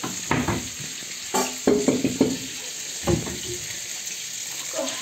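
Kitchen handling noise: several short knocks and scrapes at a stainless steel saucepan and the rustle of a crinkly plastic food packet, over a steady high hiss.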